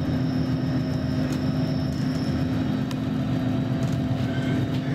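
Interior of a Roslagsbanan X10p electric multiple unit under way: a steady low rumble from the wheels and running gear with a steady hum, and a faint high whine that fades out about halfway through.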